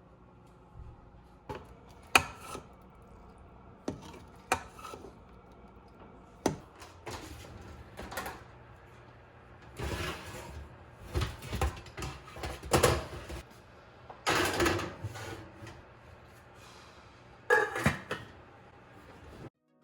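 Cookware and utensils handled in a kitchen: scattered knocks, clicks and short clattering scrapes, with a louder cluster of clatter in the middle and another near the end.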